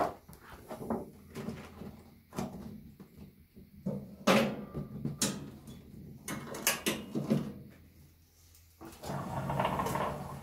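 Knocks and clanks from a Formech 300X vacuum former as its clamp frame is handled and clamped down. Near the end comes a longer sliding rumble as the heater unit is pulled forward over the frame.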